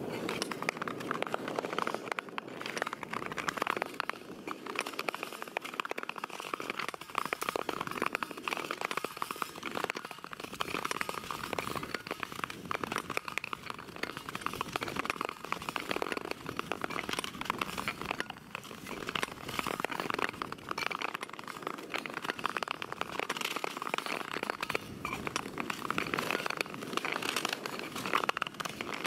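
Ice skate blades scraping over natural ice: a continuous crackling scrape with many small clicks.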